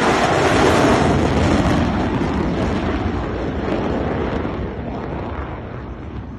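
Fighter jet noise after a pass: a loud, rushing jet sound that fades steadily as the aircraft moves away, losing its high hiss after about two seconds.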